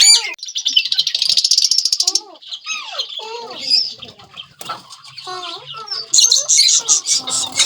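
Indian ringneck parakeet chattering: a fast, harsh rattling call for about two seconds, then a run of lower warbled notes, then loud high chatter again near the end.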